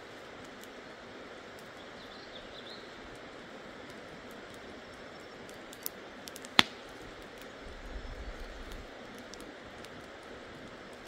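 Steady outdoor background hiss with scattered faint ticks, one sharp loud click a little past the middle and a brief low rumble about a second later.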